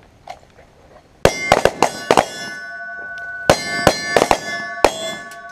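Two quick strings of handgun shots, about a second apart, starting a little over a second in. Steel targets ring after the hits and keep ringing between the shots.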